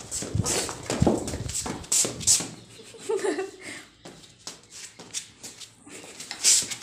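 A German shepherd puppy's paws and claws clicking and tapping irregularly on a hard floor as it scampers about.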